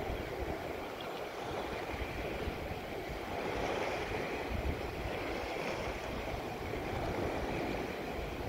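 Choppy open water splashing and rushing alongside a boat, with wind buffeting the microphone in irregular low gusts.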